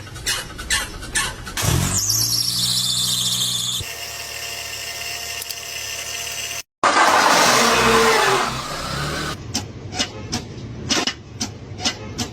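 Car engines starting in several short clips joined one after another, with a loud squeal; runs of sharp clicks come near the start and near the end.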